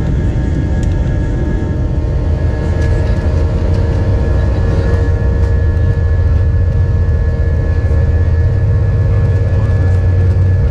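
Airbus A320's IAE V2500 turbofan engines at high takeoff thrust, heard from inside the cabin: a deep, steady rumble with steady whining tones over it, the engines' buzz, growing slightly louder about four seconds in.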